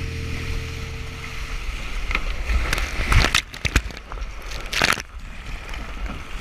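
Water splashing and sloshing around a Laser Radial dinghy's hull in strong wind chop, close on a GoPro's microphone. Several loud splashes of spray come in the middle.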